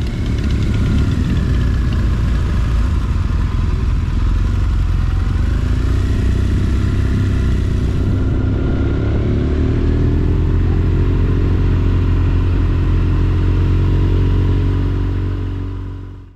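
Motorcycle engines running with a deep, steady rumble, their pitch rising and falling several times. The sound fades out at the very end.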